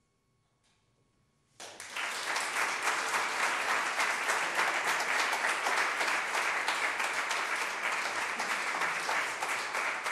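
Near silence for about a second and a half, then an audience breaks into steady applause.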